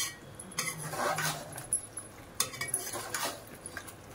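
A metal ladle scraping and clinking against the sides and bottom of a metal cooking pot in several strokes, stirring beef liver through thick masala while it fries.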